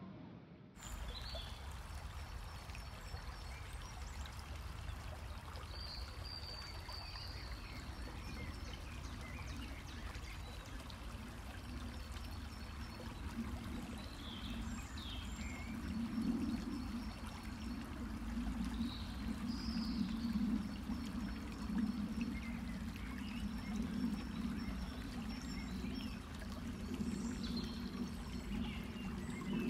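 Outdoor ambience: a steady rushing noise that grows louder from about halfway through, with small birds chirping now and then.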